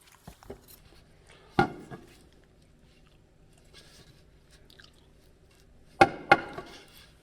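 Hammer blows on steel: one sharp strike about a second and a half in, then two quick strikes close together near the end, each ringing briefly.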